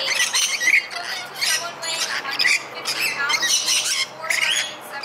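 Several rainbow lorikeets giving harsh, high-pitched screeches in quick succession, their calls overlapping.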